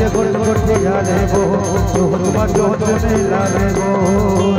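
Live folk-band music between sung lines: a wavering melody over hand-drum beats, with a bright jingle keeping time about four times a second.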